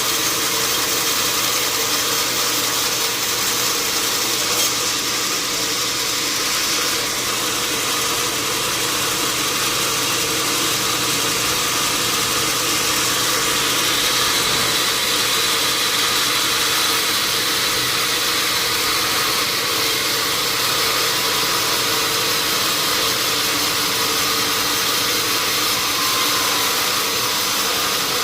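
Sawmill machinery running steadily, a constant mechanical hum under a loud hiss that does not let up.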